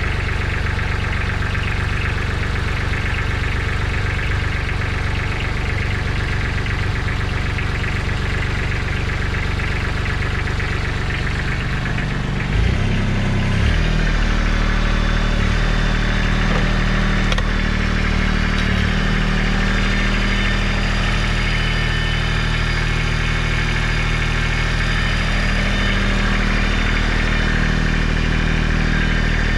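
Kubota B1700HD three-cylinder diesel tractor engine running at a steady idle. About halfway through its note changes and it gets a little louder, running faster from then on.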